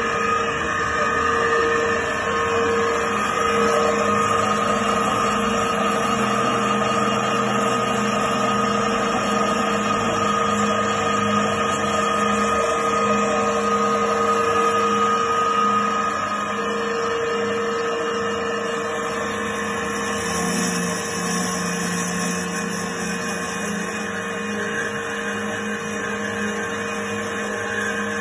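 Trennjaeger Teba 310 metal-cutting band saw running, its motor and blade drive giving a steady hum. About twenty seconds in, the low tone rises slightly and a higher hiss joins it.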